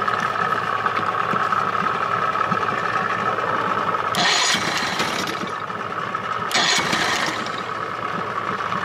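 Two-stroke Johnson/Evinrude outboard motor running steadily, with two brief louder noisy bursts about four and six and a half seconds in.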